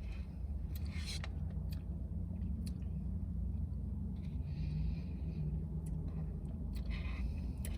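A plastic spoon clicking and scraping in an ice-cream cup, with a few short breaths, over a steady low vehicle rumble.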